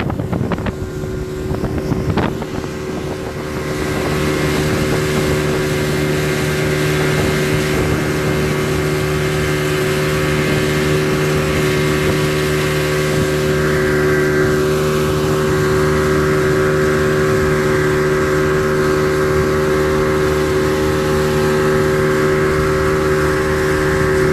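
Speedboat engine running steadily under way. Wind buffets the microphone for the first few seconds, then the engine's steady hum comes up louder and holds.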